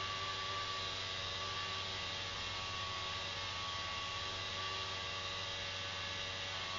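Small electric motors of a twin-propeller model aircraft running at a steady speed: an even whir with a steady high tone and no change in pitch.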